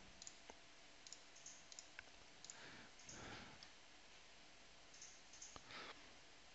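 Near silence with a few faint computer mouse clicks, three in all, spread across the few seconds.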